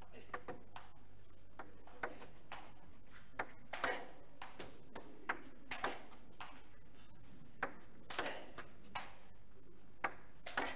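Celluloid table-tennis ball being struck by the bats and bouncing on the table during a long rally: sharp clicks at uneven intervals, about one or two a second.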